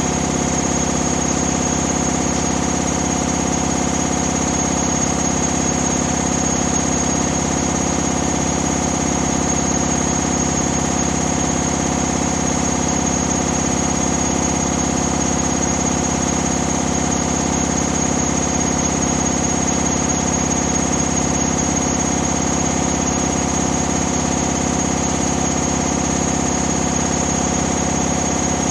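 Hoover Dynamic Next 7 kg washing machine spinning at high speed, its motor and drum running steadily with a high whine over a dense hum.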